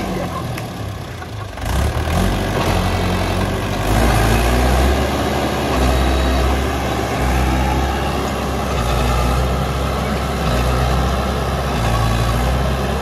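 Mahindra 415 DI tractor's four-cylinder diesel engine running under load as the tractor climbs over a heap of manure and soil. The engine dips briefly about a second in, then picks up and runs louder and steady.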